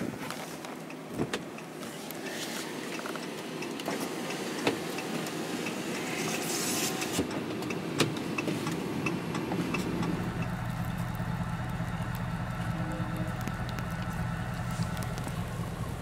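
Car running and driving, heard from inside the cabin, with scattered clicks and rattles. About ten seconds in it settles into a steady low engine hum.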